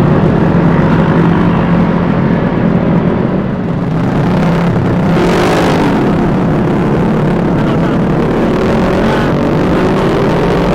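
Vespa S 125 scooter engine running steadily while riding, with wind on the helmet microphone. About five seconds in, a brief rush of noise with a sweeping pitch, like another vehicle going past.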